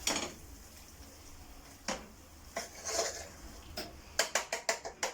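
Kitchen clatter of utensils and cookware knocking together: a few scattered knocks, then a quick run of clicks near the end.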